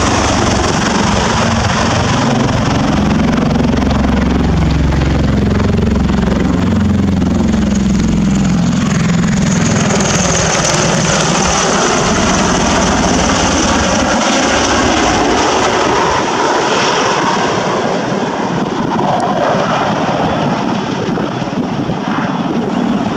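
Bell Boeing V-22 Osprey tiltrotor flying low in helicopter mode: its two big proprotors give a deep, heavy rotor beat over the whine of its turboshaft engines. The beat is strongest for the first several seconds and eases as the aircraft moves off, and a high-pitched whine comes through about ten seconds in.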